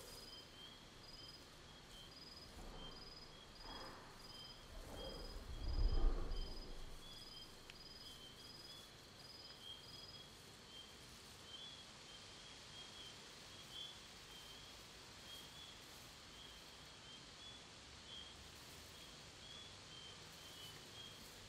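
Designed fantasy forest ambience: faint insects chirp in a steady pulse, and a few seconds in a walking tree's wood creaks, ending about six seconds in with one deep, heavy thud of its footstep.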